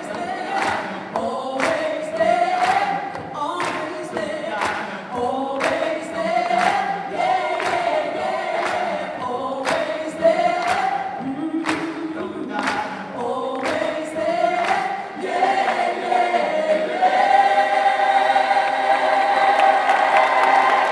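A choir singing in harmony over a steady beat of sharp strokes, then holding a long final chord for the last few seconds.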